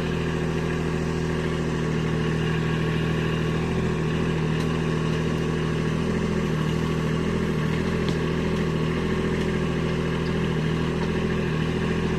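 Kubota B2601 compact tractor's three-cylinder diesel engine running steadily while it powers the backhoe digging a trench.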